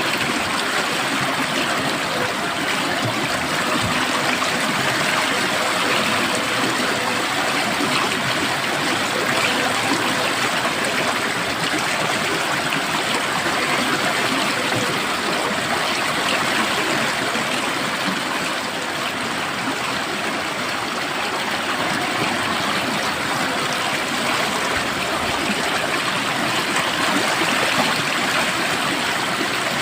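Stream of water flowing steadily over rocks, a continuous rushing and burbling that stays even throughout.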